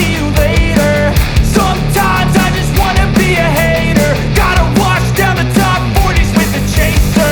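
Loud background rock music with a steady drum beat and a lead melody line.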